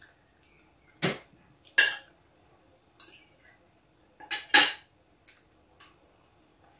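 Metal spoon and fork clinking against a large metal serving tray: several short, sharp clinks, two about a second apart early and two close together about four and a half seconds in.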